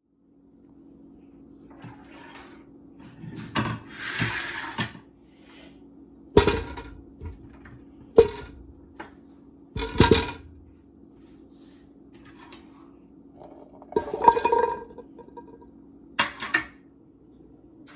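Kitchen pots, dishes and utensils clattering and clinking as they are handled, in irregular knocks several seconds apart, over a steady low hum.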